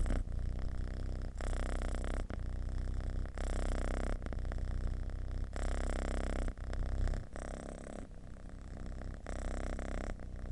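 Domestic cat purring with a deep rumble, the purr changing about once a second as the cat breathes in and out. It grows a little softer after about seven seconds.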